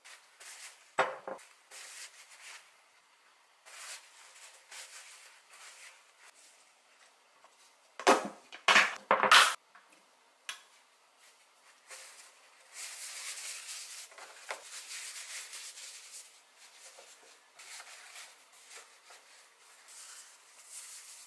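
Kitchen handling sounds: a plastic food-storage container and kitchenware clattering, with scattered clicks and three loud sharp clacks about halfway through, followed by a few seconds of rustling hiss.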